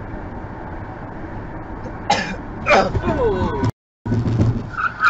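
Dashcam road noise from a car on a grooved concrete highway, with two short throat-clearing sounds about two and three seconds in. The sound drops out for a moment near four seconds, and a high squeal starts just before the end.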